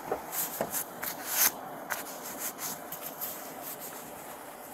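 Rustling and rubbing of clothing against a body-worn camera's microphone as the wearer moves: a run of short scrapes in the first two seconds, the loudest about a second and a half in, then fainter rustling.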